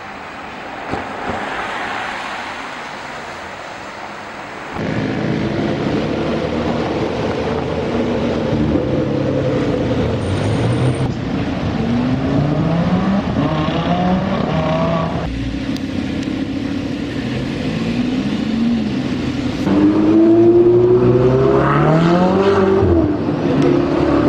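Lamborghini Huracán Spyder's V10 engine accelerating hard along the street. The engine note climbs and drops back several times as it pulls through the gears, loudest near the end.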